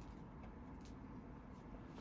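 Very quiet room tone with a steady low hum and two faint ticks close together in the middle.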